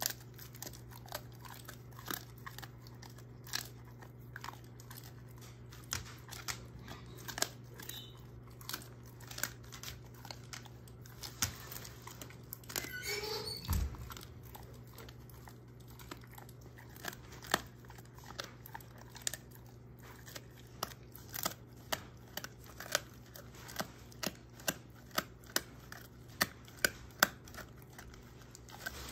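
A German shorthaired pointer chewing and crunching a hard treat: irregular cracks and tearing, settling near the end into a steady run of about two crunches a second. Halfway through there is a brief louder rustle and a low thump.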